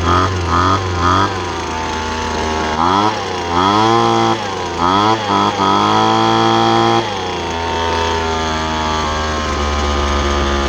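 Poulan Pro leaf blower's two-stroke engine running just after starting. It is blipped several times, revved up and down three times, and held at high revs for a couple of seconds before dropping back to a steady idle. It revs freely now that a loose cylinder bolt that had robbed it of compression has been tightened and the carburetor tuned.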